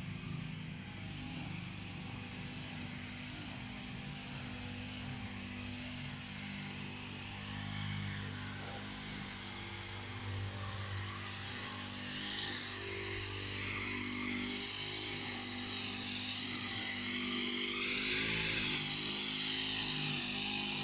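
Petrol brush cutter running steadily as it cuts grass, its pitch wavering and growing louder over the last several seconds.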